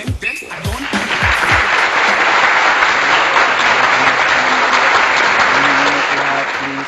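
Applause, an added sound effect, over background music: it swells in about a second in, holds steady, and fades away near the end.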